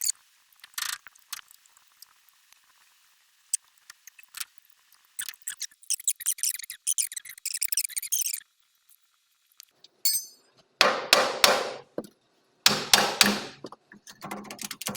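Metal parts and tools clinking, knocking and scraping during heavy-equipment axle repair, ending with three loud bursts of metallic clatter about a second long each.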